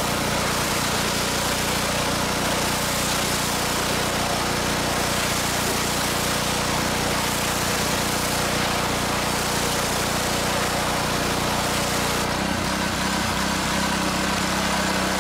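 Gas pressure washer engine running steadily while a 40-degree fan tip blasts high-pressure water onto wooden fence boards with a loud hiss. About 12 seconds in the spray stops and the engine keeps running.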